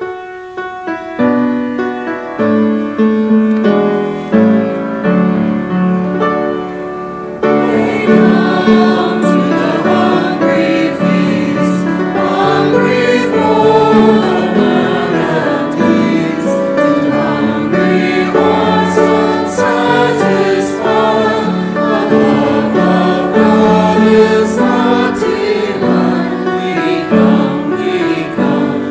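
A keyboard plays a short introduction of single stepping notes, then about seven seconds in a group of voices joins, singing a church hymn with the keyboard accompanying.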